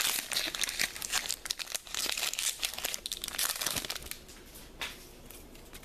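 Foil Pokémon booster pack wrapper crinkling and tearing as it is opened; the crackling dies down about four seconds in.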